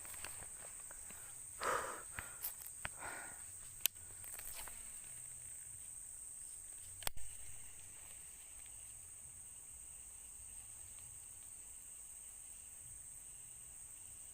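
Insects keep up a steady high drone while footsteps and rustling through vegetation sound over the first few seconds. Two sharp clicks fall near the middle.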